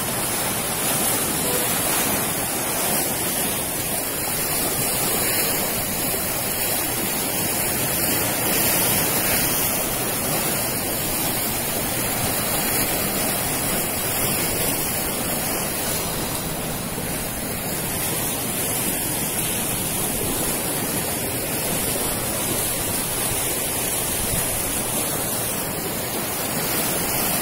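Steady, unbroken rushing noise of wind and water at the shore, with no break or change in level.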